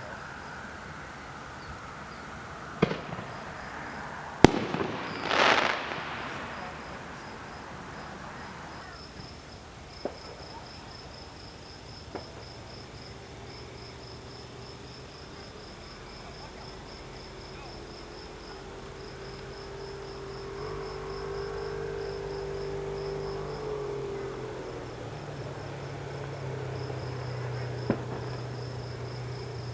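Fireworks going off: two bangs in the first few seconds, the sharper second one followed by a second-long crackling rush, then a few faint scattered pops. Insects chirp in a steady pulsing trill throughout, and a low steady hum comes in about halfway through.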